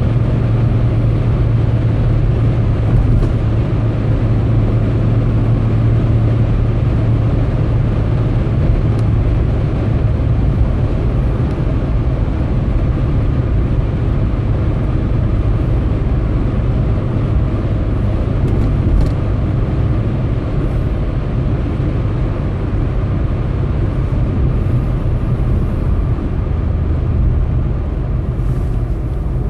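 Car cruising at motorway speed, heard from inside the cabin: steady road and engine noise with a strong low drone.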